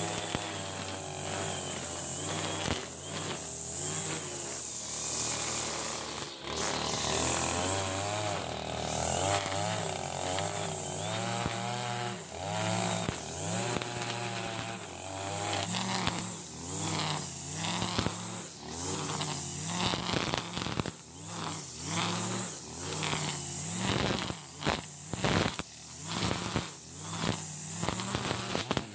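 Backpack brush cutter's petrol engine running as it cuts grass, engine speed rising and falling with the throttle, with frequent quick dips in the second half.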